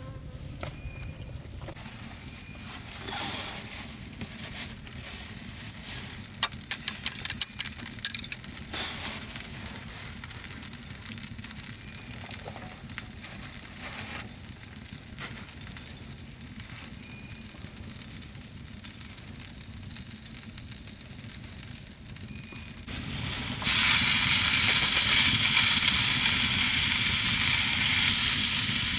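Food dropped into a hot pan, sizzling loudly in the fat from about three-quarters of the way in. Before that, a quieter stretch of scattered clicks, clinks and crackles.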